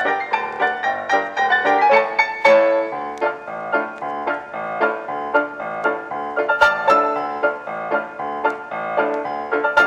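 Background piano music, a run of quickly played notes.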